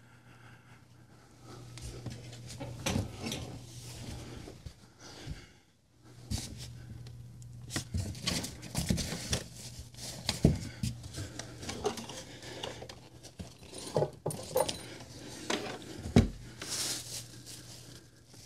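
Rummaging while searching for something: irregular rustling with scattered knocks and clatters as objects are moved about, the loudest knock near the end, over a steady low hum.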